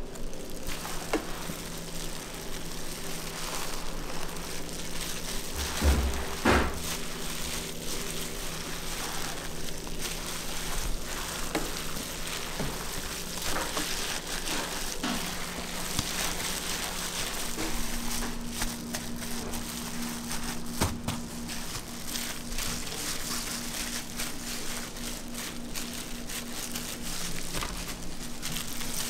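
Raw minced beef being mixed and squeezed by hand in plastic gloves in a large steel bowl: a continuous wet, crackling squish. Two thumps come about six seconds in, and a steady low hum runs underneath.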